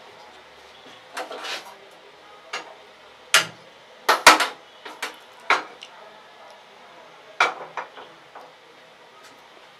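A gas stove burner being lit and a frying pan set on it: a series of sharp clicks and metal knocks from the lighter, knobs and pan support, loudest about four seconds in, then a clatter as the pan goes down on the grate near the end.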